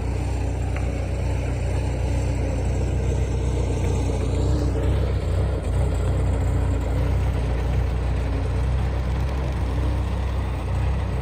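A steady low engine hum at an even level.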